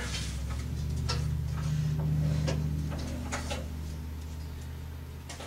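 A few short clicks and knocks as the metal parts of a camp stove are handled and its cooktop is opened, over a steady low hum that swells and fades.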